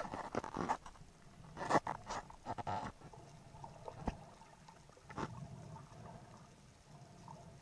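Muffled water noise picked up by an underwater camera at the sea surface as a freediver duck-dives: rough sloshing and splashing bursts in the first few seconds, then a quieter underwater murmur with a sharp click about four seconds in and a short rush about a second later.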